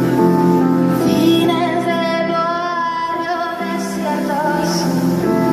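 Live song: a woman singing a slow melody over held chords from a Nord Electro 5 stage keyboard. The chords change about a second in and again a little past halfway, and the voice is strongest in the middle, wavering slightly on its long notes.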